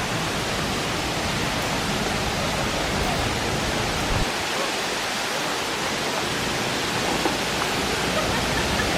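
Waterfall's rushing water: a steady, even roar.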